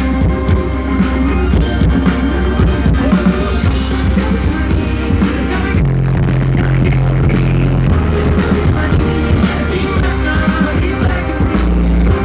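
Live band playing loud indie-rock music with heavy bass and drums. About six seconds in, the deep bass drops out for a couple of seconds, then comes back.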